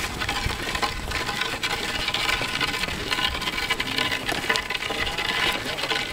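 A yoked pair of zebu oxen and several people walking on a dirt road: footsteps and hooves, with scattered light clicks over a steady rustling noise.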